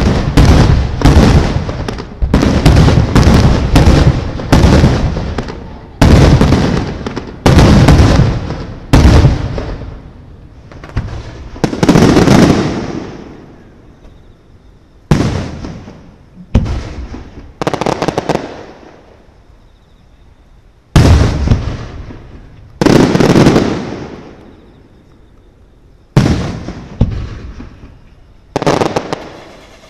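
Aerial fireworks shells bursting, each a loud boom with a long fading echo. They come thick and fast for the first dozen seconds, then singly every couple of seconds.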